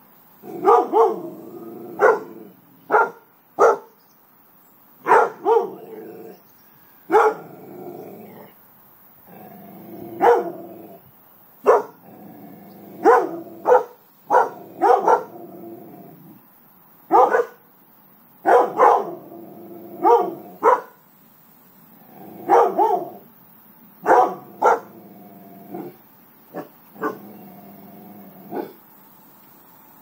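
Dogs barking in repeated bouts, sharp barks in runs of two or three mixed with longer, lower drawn-out barks, with short quiet gaps between bouts.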